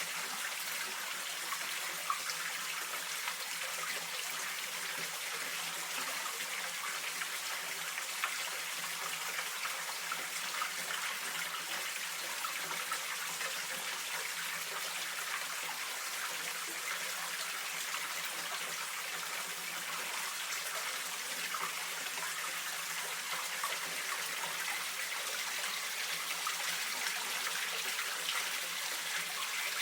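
Running water of a mountain stream: a steady, even rush with no breaks.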